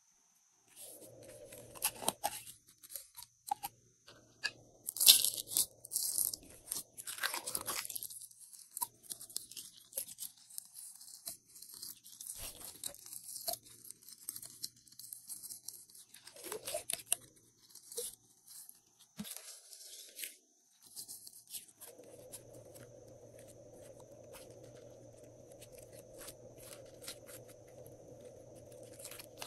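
Glossy slime crackling and popping in irregular bursts as it is squeezed out of a plastic bottle and pulled and pressed by fingers, loudest about five seconds in.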